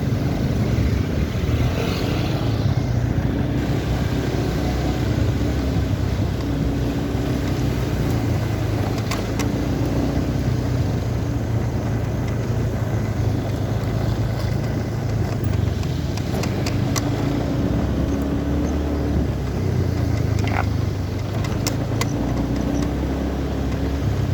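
A small engine running steadily at an even speed, with a few faint clicks here and there.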